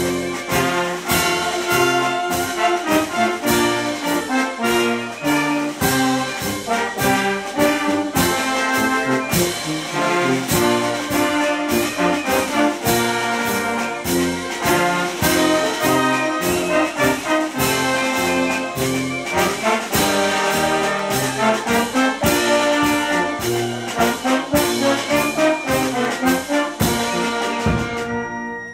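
Brass band playing a march: tubas, saxophones, euphoniums and trumpets over a steady drum beat of about two strokes a second.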